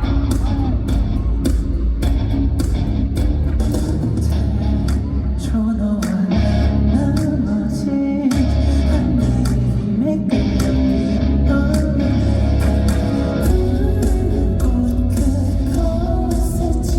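Pop song with a heavy bass beat and a lead vocal singing over it, performed live in a concert hall.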